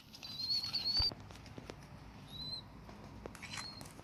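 Hand-reared young sparrow cheeping thinly and high while being spoon-fed: a run of chirps in the first second, then two short single chirps, with soft wing flutters and light clicks around the spoon and steel bowl.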